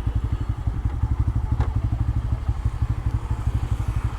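Bajaj Pulsar N160's single-cylinder engine idling with a low, even putter.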